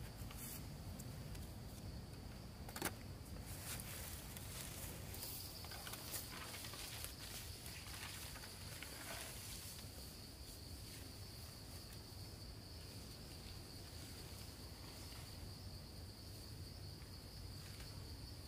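Insects chirring in a steady high-pitched drone, with a few light knocks and rustles, one sharp click a little under three seconds in.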